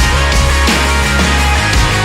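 Background rock music with heavy bass and a steady drum beat.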